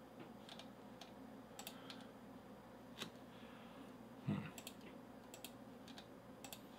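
Faint, scattered clicks of computer keyboard keys, a few strokes at a time, with a slightly louder, deeper knock about four seconds in.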